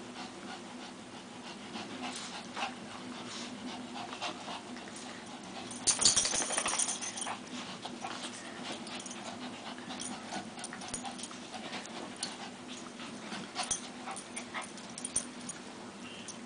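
Two small dogs play-wrestling on carpet: scuffling and paw noise with short dog vocalisations, and a louder burst of dog noise about six seconds in.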